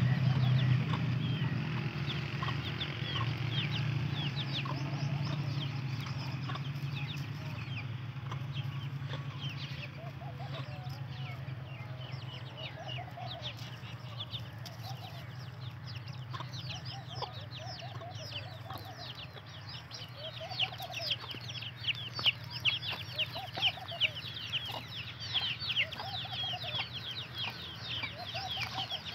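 Chicks peeping with short, high-pitched calls that grow busier through the second half, while an adult Aseel chicken clucks softly every couple of seconds. A steady low hum runs underneath and fades after the first few seconds.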